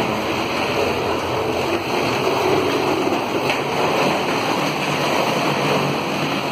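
Steady, even rushing hum inside an airport passenger boarding bridge at a parked airliner: the noise of aircraft and air-handling machinery.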